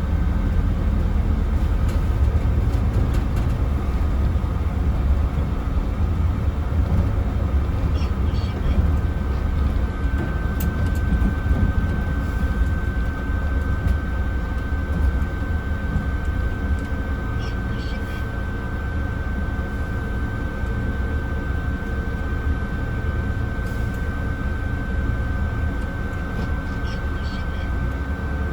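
Cabin of a Mercedes-Benz O307 city bus on the move: a steady low engine and road rumble. About a third of the way in, a thin, steady high tone joins it and holds.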